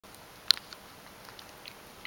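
Small clicks and ticks from a ragdoll cat kneading in the air and licking its paw on a tabletop. There is one sharp click about half a second in, then a few faint ticks.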